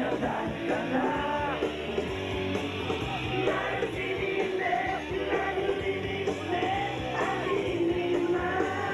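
Dance music with singing, continuous throughout.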